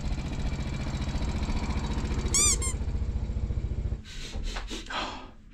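A delivery motorcycle's engine running with an even pulsing beat, a short high squeak of three quick chirps about two seconds in. It stops about four seconds in, leaving a few soft clicks and rustles.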